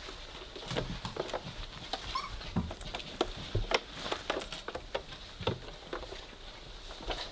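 Weimaraner puppies, three weeks old, scrabbling about and mouthing plastic toys on a blanket: a run of irregular small taps and knocks, with one brief high, rising squeak about two seconds in.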